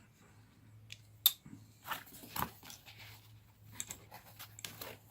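Folding knives being handled: a sharp click about a second in, then a few softer clicks and knocks, over a low steady hum.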